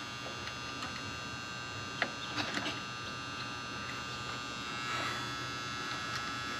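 A steady electrical hum with several light clicks: meter probes tapping the terminals of a failed dual run capacitor, the sharpest click about two seconds in.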